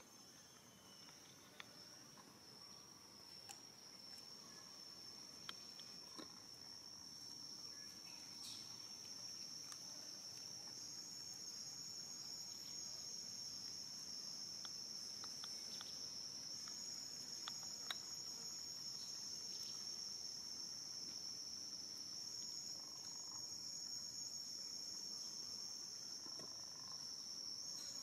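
Steady high-pitched insect chorus that grows gradually louder, with a few faint scattered clicks.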